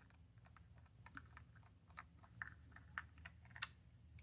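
Faint, irregular light clicks and taps as the battery cover goes back onto a digital torque wrench's handle, small plastic and metal parts being fitted and screwed down by hand. The clicks come more often after about two seconds.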